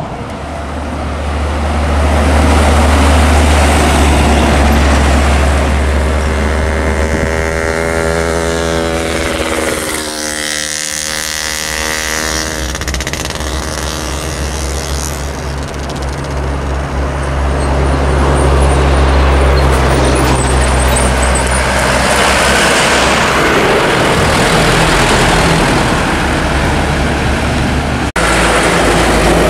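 Light diesel trucks, among them a Mitsubishi Fuso Canter dump truck, driving past one after another with a deep, steady engine drone. About eight to ten seconds in, one engine's note slides in pitch as it goes by close.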